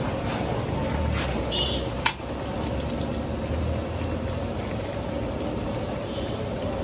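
Large pot of kala bhuna meat curry sizzling and bubbling over a gas burner as it is stirred with a long metal spatula, with one sharp metal clank against the pot about two seconds in.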